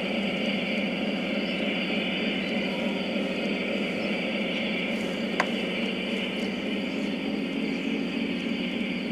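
Large-scale (G-gauge) model passenger train rolling along the garden track and moving away, a steady running noise that slowly grows fainter, with one brief click about five seconds in.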